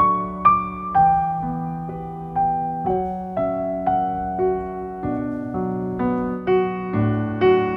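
Piano music: a slow melody of single struck notes, about two a second, each ringing out over held lower notes.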